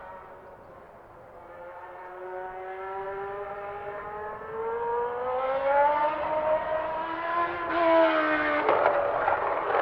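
Benetton B190 Formula One car's 3.5-litre Ford V8 screaming at high revs, the engine note climbing steadily and growing louder as the car approaches. Near the end it turns into a loud, harsh rasp as the car comes past close by.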